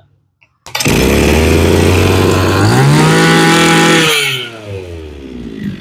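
Kubota 26cc brush cutter engine starting from a pull of its recoil starter after being primed and choked. It runs fast, climbs higher in pitch about halfway, then drops back and settles to a lower idle near the end.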